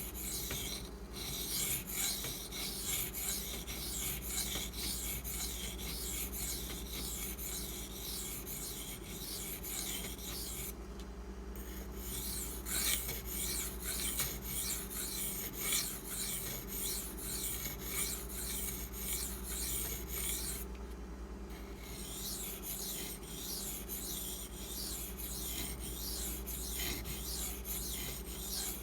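Steel knife blade being stroked back and forth on a 1000-grit sharpening stone, a continuous rapid scraping with two brief pauses, about eleven and twenty-one seconds in. The stone is refining the scratchy bevel left by a 240-grit silicon carbide stone, working up to the apex without raising a burr.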